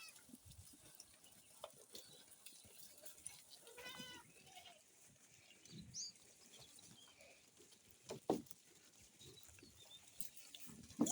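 A goat bleats once, about four seconds in, among other farm animals. A few short sharp knocks, the loudest just past eight seconds.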